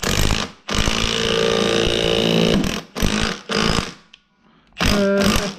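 A power tool running in bursts, working a specialty puller on a steering column: a short burst, then one steady run of about two seconds, then shorter runs, with a brief pause about four seconds in.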